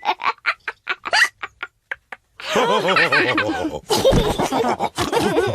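Cartoon pigs laughing. A run of short, quick laughs fades out over the first two seconds, then after a brief pause several voices burst into louder laughter together.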